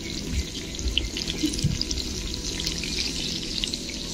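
Pointed gourds (potol) frying in hot oil in a kadai: a steady sizzle with scattered crackles and spits.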